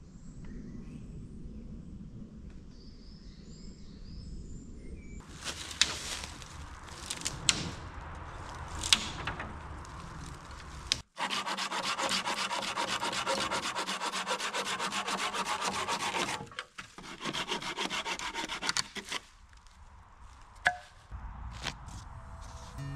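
Firewood being worked by hand: rasping sawing or scraping strokes on wood, heard in several short cut-together stretches. The loudest part is a steady run of strokes in the middle, with a few sharp clicks scattered through.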